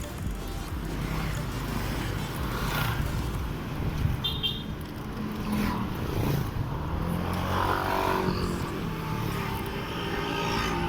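Road traffic, cars and motorcycles passing, a steady rumble of engines and tyres. A short high double beep comes about four seconds in.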